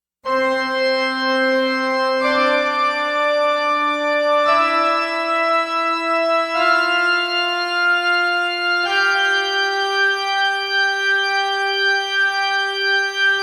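Music intro: a sustained organ-like keyboard tone holding one note at a time, stepping up in pitch about every two seconds through five rising notes.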